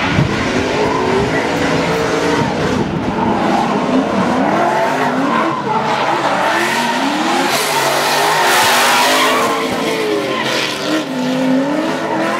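Two drift cars running in tandem, their engines revving up and down as the throttles are worked, over the screech of tyres spinning and sliding.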